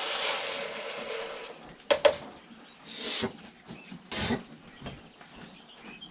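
Rabbit feed poured into the rabbits' feeder, a rattling rush for about a second and a half. Two sharp knocks follow about two seconds in, then shorter rustles.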